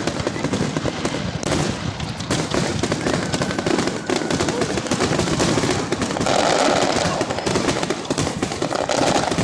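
Fireworks and firecrackers going off in a dense, continuous barrage of overlapping pops and cracks, which grows thicker about six seconds in.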